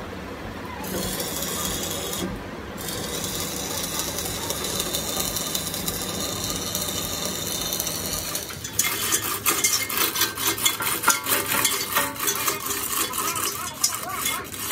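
Electric arc welding: a steady sizzling hiss, with the arc breaking off briefly at the start and again about two seconds in. From about nine seconds a louder, dense crackling with rapid clicks takes over.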